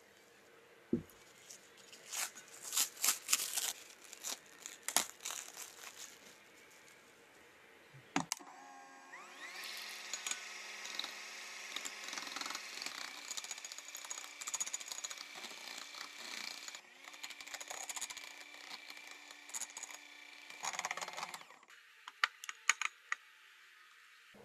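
A glass bowl thumps down and plastic cling film crinkles as it is handled. Then an electric hand mixer whips chilled chocolate ganache in the glass bowl, running steadily for about twelve seconds before it switches off, followed by a few light taps.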